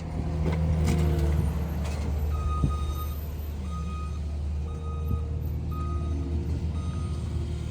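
Steady low vehicle rumble, with a truck's reversing alarm beeping about once a second from about two seconds in.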